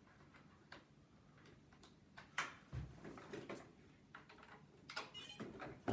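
Small plastic clicks and knocks as an iLife V5 robot vacuum is handled and its charger lead is plugged directly into it. Near the end come short, faint, high electronic beeps from the robot.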